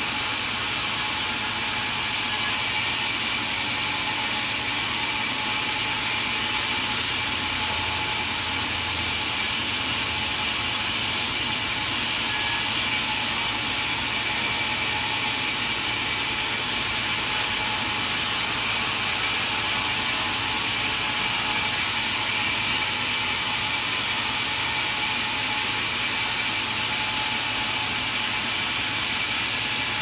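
Vertical band saw of a sawmill headrig running steadily and ripping boards from a log: an even, hissing machine noise with a faint constant whine.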